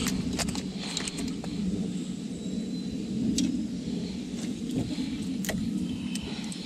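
Light metallic clicks and clinks of fishing pliers and a lure's hooks being handled while a caught largemouth bass is unhooked, over a steady low rumble.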